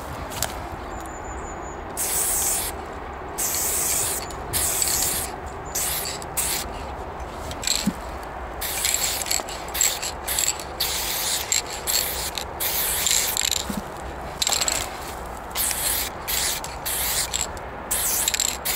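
Aerosol spray paint can hissing in many short bursts of irregular length, one after another, starting about two seconds in.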